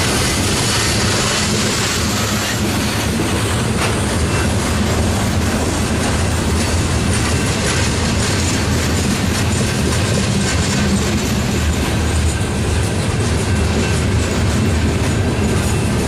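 Loaded coal cars of a freight train rolling past close by: steady noise of steel wheels on the rails.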